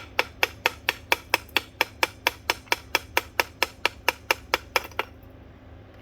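Rapid, even blows striking a ceiling fan's glass light housing, about four or five a second, stopping about five seconds in.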